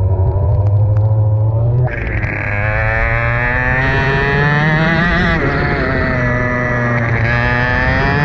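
Racing kart engine, heard from the kart itself: it runs at low, steady revs, then about two seconds in it picks up and the revs climb, dropping back briefly a couple of times before climbing again.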